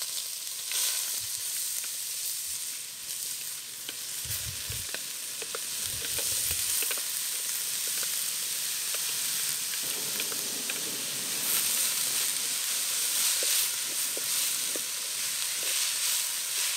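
Chopped onions sizzling in hot oil in an aluminium pot, a steady frying hiss with small crackles, stirred with a metal spoon near the end.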